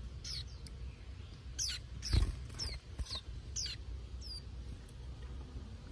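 Young white-eyes giving short, high chirps that fall in pitch, about eight of them spread over a few seconds. A single knock about two seconds in is the loudest sound.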